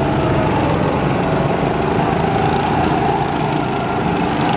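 Several go-karts' small gasoline engines running as the karts drive past on the track, a steady loud buzz.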